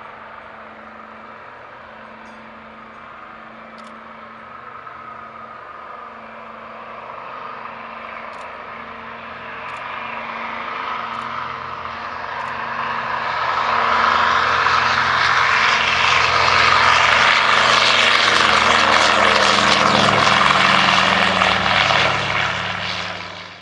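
Douglas DC-3's two Pratt & Whitney R-1830 radial engines and propellers at takeoff power through the takeoff roll and lift-off, growing steadily louder as the plane comes closer. It is loudest for the last several seconds, then cuts off suddenly at the end.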